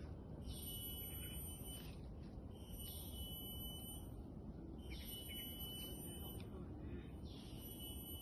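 Cicada buzzing in repeated calls, each lasting over a second and coming about every two seconds, over a low steady rumble.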